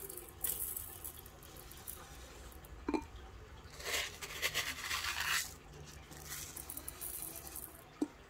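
Small aquarium gravel poured from a plastic cup into a glass fish bowl and shifted by hand, a rattling hiss in several runs, the longest about four seconds in. Two short clinks, one about three seconds in and one near the end.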